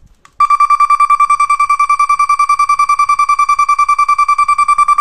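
Box-type vehicle reverse alarm (back-up buzzer) sounding a loud, high, rapidly pulsing beep, roughly ten beeps a second. A click comes just before it switches on, about half a second in.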